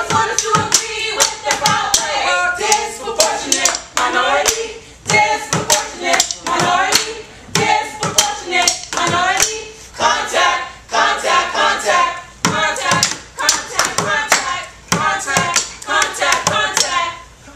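Drumsticks beating a fast rhythm on plastic buckets, with a group of voices over the beat.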